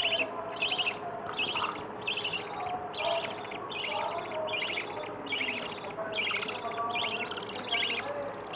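Three-day-old lovebird chicks cheeping: high, raspy calls repeated about twice a second without a break.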